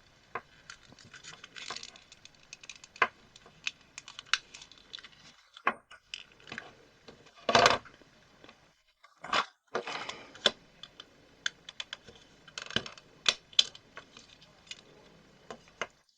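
A knife prying open the plastic housing of a soldering iron: irregular clicks, scrapes and small knocks of plastic and metal, with a louder burst about halfway through.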